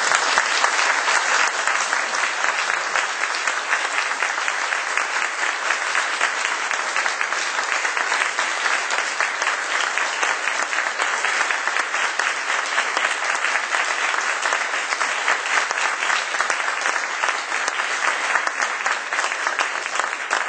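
An audience applauding, a dense, steady roll of many hands clapping at the end of a speech.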